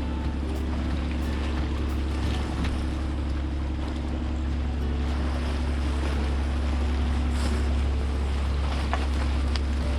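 A steady low drone with a constant hum, and wind and surf noise over it.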